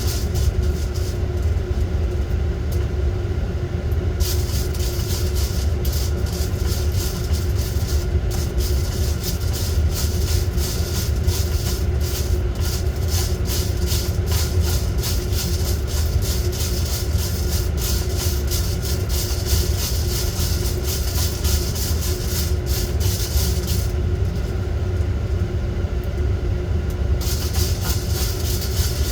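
Coffee roaster running mid-roast: a steady low rumble of the drum and fan. A dense rattling hiss in the upper range sets in a few seconds in, drops away near the end and comes back just before it stops.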